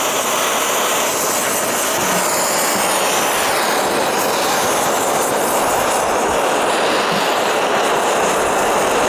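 Propane torch burning with a steady, unbroken hiss.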